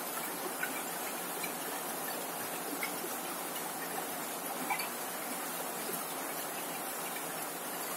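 Steady heavy rain, with scattered single drops ticking sharply on a corrugated zinc roof.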